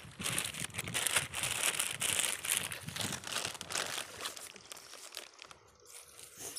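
Dry plant stems and leaves crackling and crunching as they are trampled and pulled apart. The crackling is dense for the first four seconds or so, then dies down.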